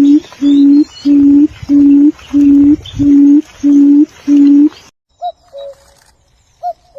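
A bird giving a loud run of about eight evenly spaced low hoots, roughly three every two seconds, which stop a little before five seconds in. After a short pause come two quieter two-note calls, each a higher note dropping to a lower one.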